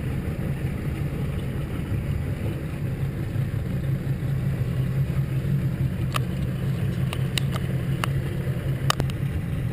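Small motorboat under way: its engine hums steadily as water rushes past the hull. Several short sharp ticks come in the last few seconds.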